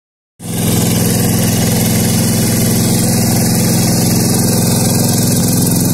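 Yanmar walk-behind hand tractor's single-cylinder diesel engine running steadily as it ploughs a wet rice paddy. The sound cuts in sharply just after the start.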